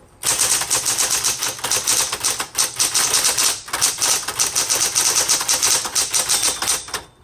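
1960s Smith Corona Coronet Automatic electric typewriter typing fast: a dense, even run of key strikes that stops suddenly a little before the end.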